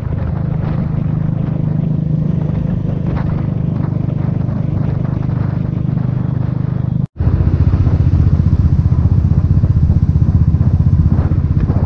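Motorcycle engine running steadily while being ridden at cruising speed, heard from the rider's position. About seven seconds in the sound drops out for an instant, then the engine continues louder.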